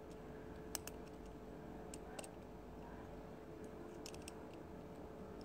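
Near-quiet room tone with a faint steady hum and about half a dozen soft, scattered clicks.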